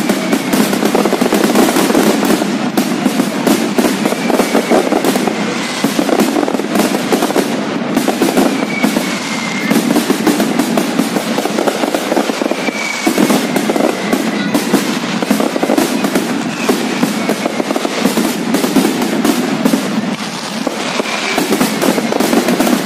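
Fireworks display: a dense, continuous barrage of rapid bangs and crackling, with a few short falling whistles mixed in.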